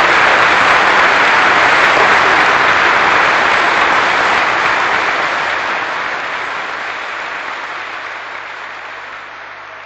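Audience applauding at the end of a live cabaret song, the applause fading steadily down.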